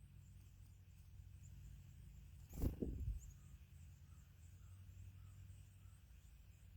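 Faint outdoor ambience with a low steady hum and faint high chirps, broken by a brief thump and rustle a little under three seconds in.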